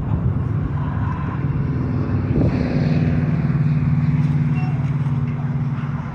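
Boeing 737 MAX jet engines running, a loud steady low rumble; about two and a half seconds in a steady low hum joins it and eases off near the end.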